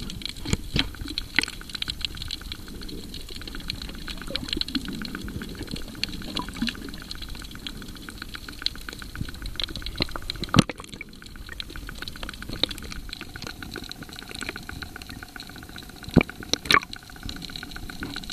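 Water sounds picked up by a snorkeler's camera moving underwater and at the surface: sloshing and bubbling, with frequent small clicks and crackles. A few sharp knocks stand out, the loudest about ten seconds in and two more near the end.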